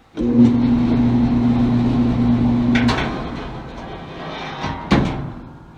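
Old Kenmore electric dryer starting up: the drive motor and tumbling drum run with a steady electrical hum. Near 3 s a click cuts the hum and the drum spins down, fading away, with another sharp click about a second before the end.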